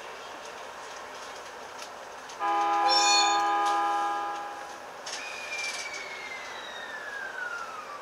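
Train horn sounding once for about two seconds, a loud chord of several steady tones, over steady running noise. It is followed by a single high whine that glides steadily down in pitch.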